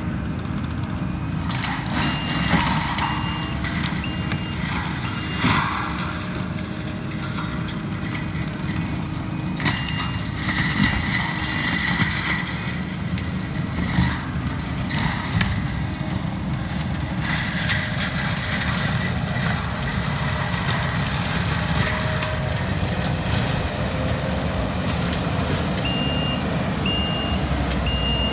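Kubota compact track loader's diesel engine and forest mulcher head running steadily under load, with irregular louder knocks as the head chews into the ground and brush. Its backup alarm beeps in short runs, a few seconds in, around ten seconds in and again near the end.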